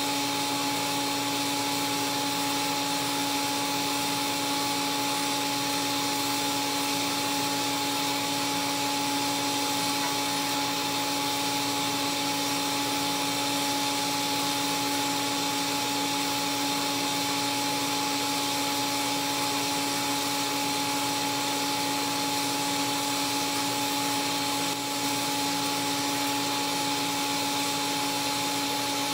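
TIG welding arc burning steadily on a carbon steel pipe root pass: an even hiss with a constant whine.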